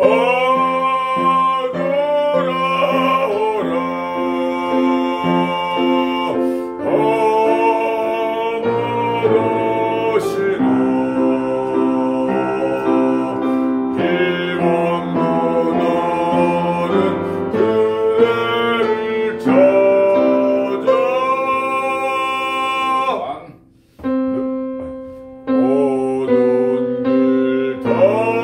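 A man singing a Korean art song in classical bel canto style over piano accompaniment, with a brief pause near the end.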